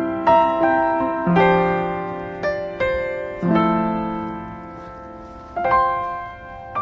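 Slow, gentle background piano music, notes and chords struck every second or so and left to ring and fade.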